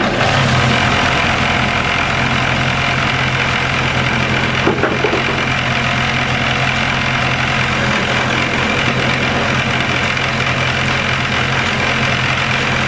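Homemade wood lathe running at a steady speed: a loud, even motor hum under a rushing hiss, with a short knock about five seconds in.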